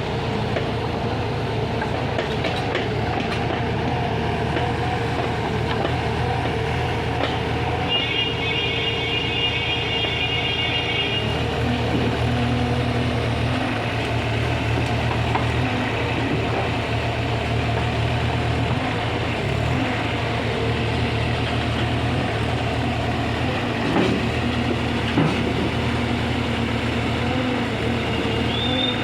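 Heavy diesel engine running steadily under load. About eight seconds in, a pulsing high-pitched tone sounds for about three seconds.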